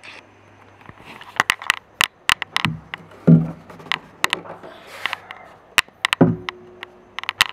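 Strings of an aeolian harp plucked by finger: a run of sharp, uneven plucks and clicks, a couple of which sound as short notes, one ringing on for about a second late on.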